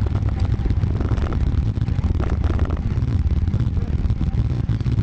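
Wind buffeting the microphone of a camera on a moving road bicycle: a steady, flickering low rumble.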